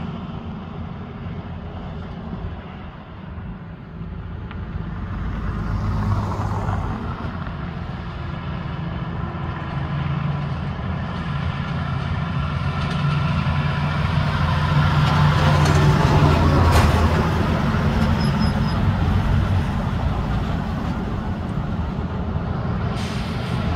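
Heavy diesel trucks in a convoy approach and pass on a downhill highway. Their engines make a low, steady drone that grows louder as they near and is loudest about two-thirds of the way through, with a brief sharp click or hiss near that point.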